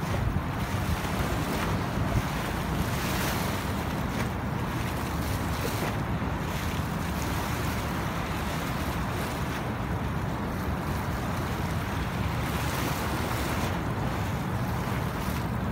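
Wind buffeting the microphone over the steady rush of river water, with a low rumble underneath.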